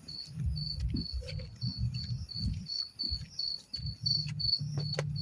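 A cricket chirping steadily in short, evenly spaced pulses, about three a second. Low rustling and soft thumps run underneath.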